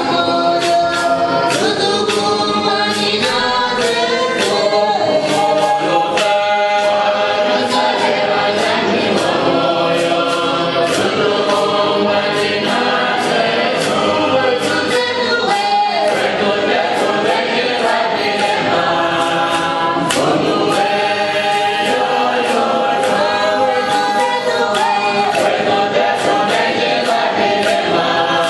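Church choir singing a hymn in several parts over a steady percussive beat, with a madimba (wooden xylophone) playing along.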